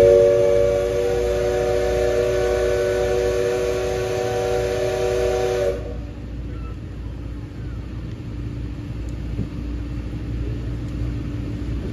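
Steam locomotive whistle blowing one long chord of several tones, then cutting off sharply about six seconds in. After it comes the steady low rumble of the train running.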